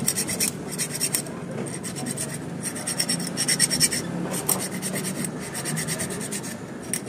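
A hand file rasping on the steel of a bicycle freehub, scraping rust off its ratchet teeth in runs of quick strokes with short breaks between them.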